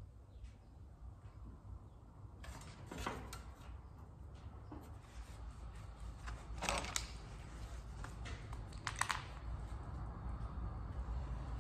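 Light clicks and scrapes of hand work on a sheet-aluminum panel, coming in a few short clusters over a low steady hum.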